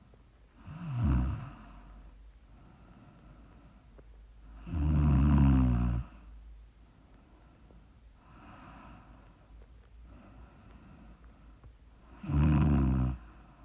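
A sleeping woman snoring: three loud snores, the first about a second in, the second about five seconds in and the last near the end, with softer breaths between.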